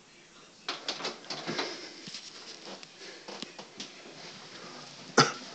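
Irregular light taps, clicks and knocks of movement and handling, with one sharp, loud knock about five seconds in.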